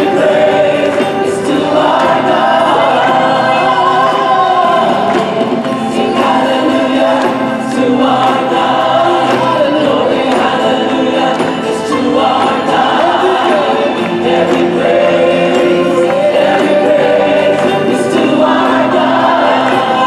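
A Christian worship song sung by many voices together over a live band, with no break.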